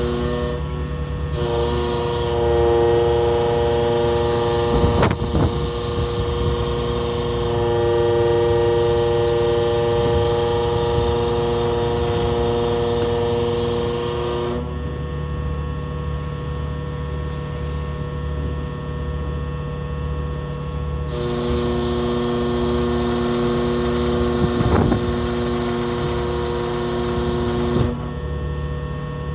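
Ship's engine running with a steady low drone, while a hydraulic crane's pump whines at a steady pitch in two long stretches, starting a second or so in and again about two-thirds of the way through, as the crane lowers a heavy lander over the side. A metallic knock or two sounds in each stretch.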